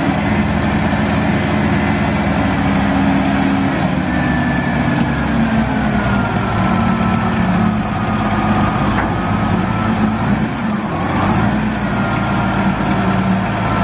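Komatsu WA450-1 wheel loader's diesel engine running steadily while its lift arms raise the bucket, with a thin high whine that slowly sinks and then climbs again about two-thirds of the way through.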